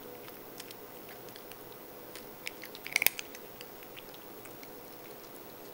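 An elderly cat eating small dry crunchy cat treats off a tile countertop: faint scattered clicks of mouth and treats, with a short run of louder clicks about three seconds in.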